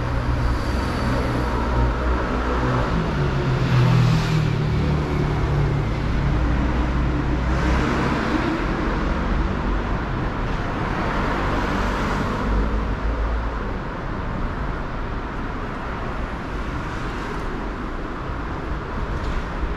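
City street traffic: motor vehicles passing one after another, the loudest with a low engine hum about four seconds in. It grows a little quieter in the last few seconds.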